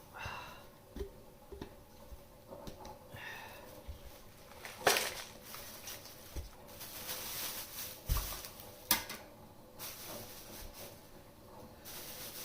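Intermittent rustling and handling noises with a few sharp clicks, two of them louder, about five and nine seconds in.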